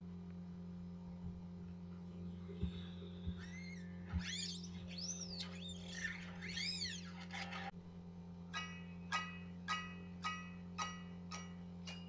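Electric guitar played as an eerie sound effect, quietly over a steady amplifier hum: high notes slide up and down in wavering arcs for a few seconds, then give way to short, high plucked notes repeated about every half second.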